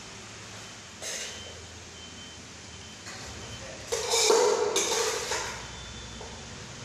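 Aluminium cooking pot scraping and shifting on a tiled floor while food is scooped out of it by hand: a short scrape about a second in, then a louder rough scraping for about a second and a half from about four seconds in.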